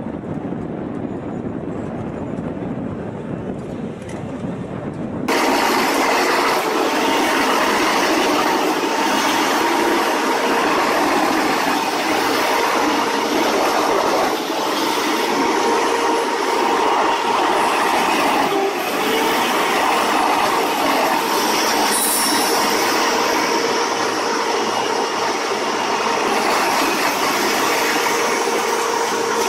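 Heavy wood-processing machinery running steadily under load, a dense grinding noise with a faint steady whine. About five seconds in it changes abruptly to a louder, brighter machine.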